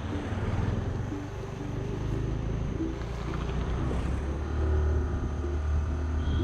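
A steady low rumble, louder from about four seconds in, under background music with short repeated notes.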